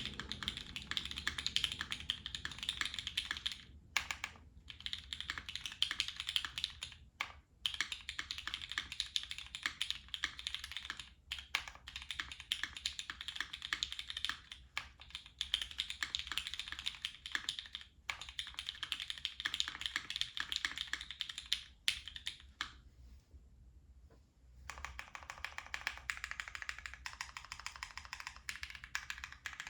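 Custom Goblin mechanical keyboard with GHv4-lubed Cherry MX Brown Hyperglide switches on a polycarbonate plate, o-ring mounted, with GMK keycaps, being typed on fast: a dense run of keystrokes, with a short pause about 23 seconds in.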